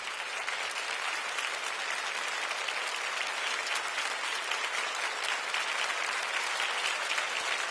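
A large studio audience applauding steadily, many hands clapping at once.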